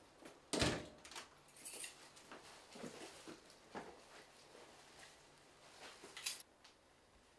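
A front door thuds shut about half a second in. Faint footsteps, rustling of a coat and a cloth bag, and small clicks follow as a person comes indoors.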